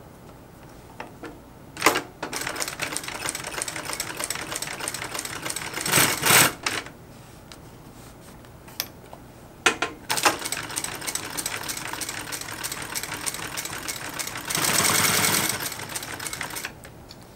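Industrial sewing machine on a servo motor stitching through a thick layer of leather, foam and nylon, in two runs of rapid needle strokes, each begun with a sharp knock. Near the end the second run speeds up and grows louder.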